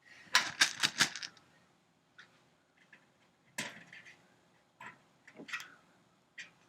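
Sharp clicks and light knocks from handling tools and parts at the workbench: a quick run of about five clicks near the start, then single clicks spaced about a second apart.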